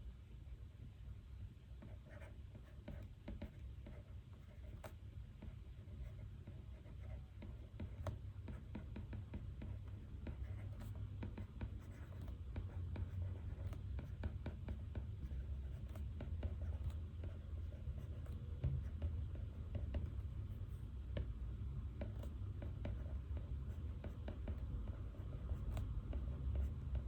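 Pen writing on paper: a run of small, irregular scratches and taps from note-taking, over a low steady hum.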